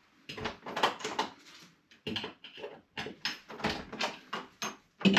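Old door lock hardware being worked off with a screwdriver: a run of irregular metal clicks, scrapes and rattles.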